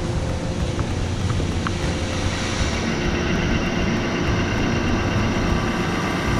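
Steady industrial machinery drone with a constant low hum. From about halfway, several steady whining tones join in, from a dynamic balancing machine spinning a ship's main engine auxiliary blower impeller on a test run.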